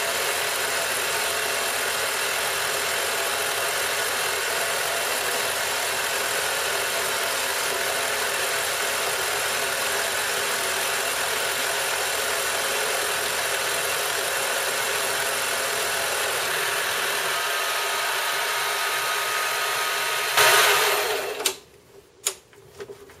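Benchtop mini metal lathe running, its tool taking a rough cut along an aluminium pipe: a steady motor-and-cutting noise, with a thin steady tone joining for the last few seconds. Near the end there is a brief louder burst, then the noise stops and a few light clicks follow.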